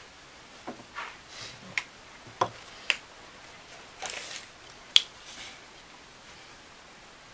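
A handful of sharp clicks and light knocks, about seven in the first five seconds with the sharpest near the end of that run, from a wooden strip, pencil and steel tape measure being handled and set down on a wooden workbench.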